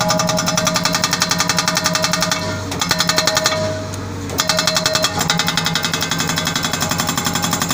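SHS SB43 hydraulic rock breaker on a JCB 3DX backhoe hammering rock with rapid blows, in three bursts broken by two short pauses about two and a half and four seconds in. The backhoe's diesel engine is heard running in the pauses.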